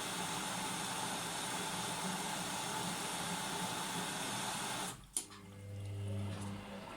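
Gorenje washing machine taking in water: a steady hiss of water running into the drum, cut off abruptly about five seconds in with a sharp click as the inlet stops, followed by a low steady hum from the machine.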